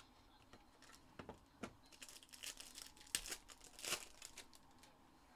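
Foil wrapper of a trading card pack being torn open and crinkled by hand: a run of irregular crackles from about a second in, loudest near the end, with two sharper tears.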